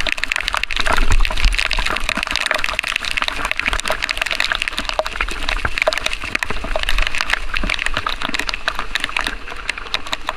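Heavy rain pattering and crackling close on the microphone, a dense stream of small drop hits over a low rumble of wind.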